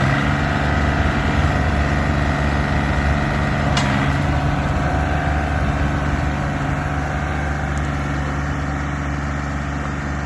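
An engine idling steadily, with a single brief click about four seconds in.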